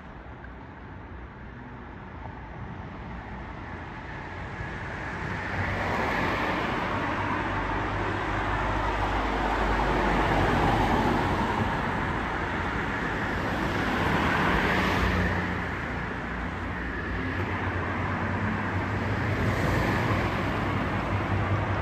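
Emergency vehicles driving past one after another: engine and tyre noise swells and fades as each passes, several times over, with a heavy engine's low drone growing near the end as a fire engine approaches.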